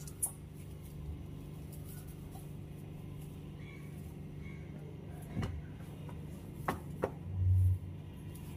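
Soft grass broom sweeping a smooth tiled floor, with a few light clicks and, near the end, a dull thump as a woven cotton floor mat is dropped onto the tiles, over a steady low hum.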